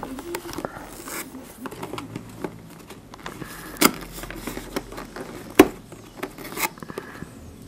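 Cardboard camera box being handled and picked at to break its seal: scattered scratches, rustles and small clicks, with two sharper knocks in the second half.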